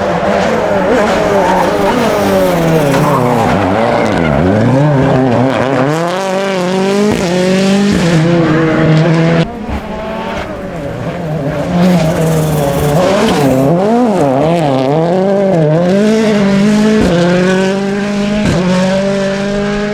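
Rally car engine revving hard, its pitch climbing and dropping again and again as the driver shifts gears and lifts off. The sound breaks off abruptly about halfway through and again near the end.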